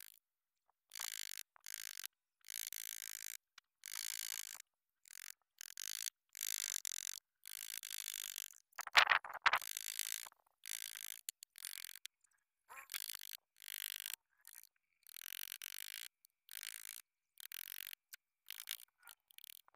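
Hand carving chisel cutting into wood in short scraping strokes, each one stopping abruptly. A louder knock comes about nine seconds in.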